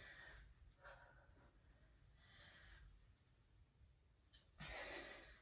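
Near silence with a few faint breaths, the loudest a breathy exhale about five seconds in.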